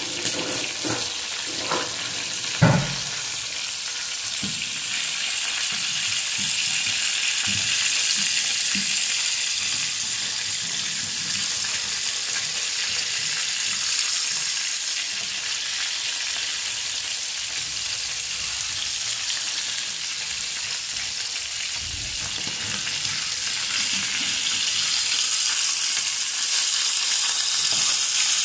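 Fish steaks pan-frying in oil, a steady sizzle, with a few sharp knocks in the first few seconds. A fork prods and turns the pieces.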